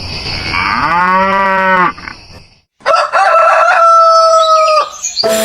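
Farm-animal calls: a low, drawn-out call lasting over a second, then, after a short silence, a higher call held steady for about two seconds.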